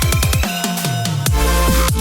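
Electronic music with a fast beat and deep, pitch-falling bass drum hits; the bass drops out about half a second in and comes back just over a second later.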